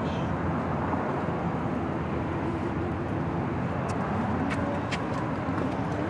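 Steady low rumble of road traffic, with a few faint clicks about two-thirds of the way through.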